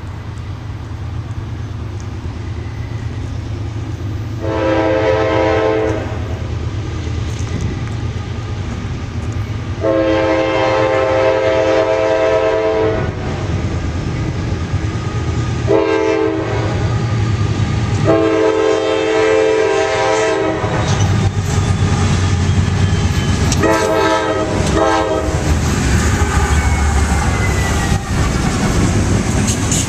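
Multi-chime air horn of a CSX diesel freight locomotive sounding the grade-crossing pattern: two long blasts, a short one and a long one, then two quick short toots. Underneath, the diesel engine and wheel rumble grows louder as the locomotives pass close by near the end.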